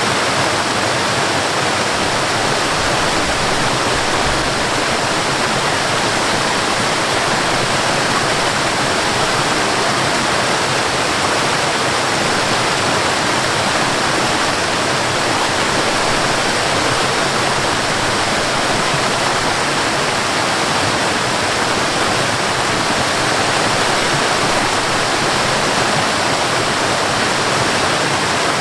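High waterfall: water falling from a height in a steady, unbroken rush.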